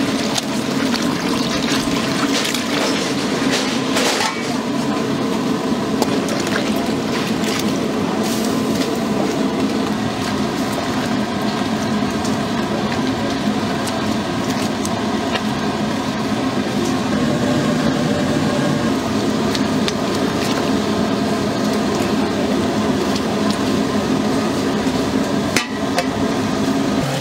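Steady running and splashing water as an octopus is washed and rubbed by hand, with a few short knocks of handling.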